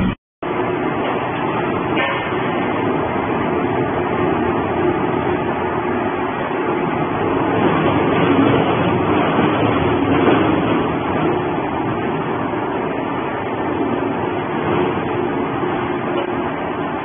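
Industrial shredder running with a steady, loud, dense mechanical noise while being loaded with cardboard boxes. The sound cuts out for about half a second right at the start, then carries on evenly.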